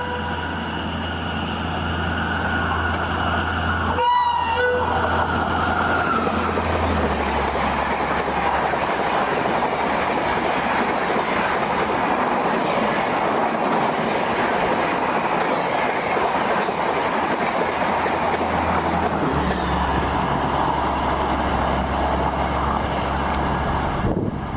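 Shatabdi Express hauled by a WAP-5 electric locomotive running at high speed, about 130 km/h, with a short horn blast about four seconds in. After that comes the steady loud rush of the coaches and wheels on the rails, which cuts off near the end.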